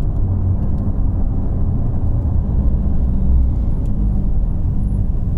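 Ferrari 488 GTB's twin-turbo V8 cruising at steady low revs, heard as a low drone mixed with road rumble.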